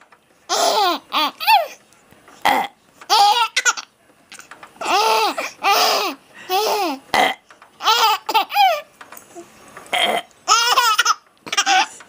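A baby of about four months laughing hard in repeated high-pitched bursts, set off by someone making burping sounds. A few rougher burp noises come between the laughs.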